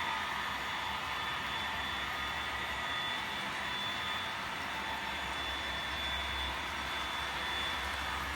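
HO scale model diesel locomotive consist running with a freight train: a steady engine drone with a high, even whine over it.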